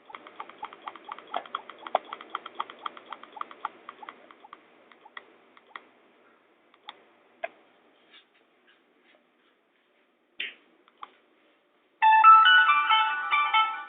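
Quick clicks, about five a second, thinning to a few scattered clicks. Near the end, a Nokia 5800 XpressMusic ringtone starts playing loudly through a Nokia 220 4G's small speaker as a bright melody of quick high notes.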